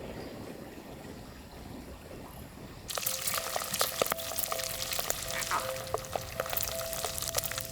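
Pork fat frying in hot oil, a dense crackling and popping that starts abruptly about three seconds in after a quieter stretch. Soft background music with held notes runs under it.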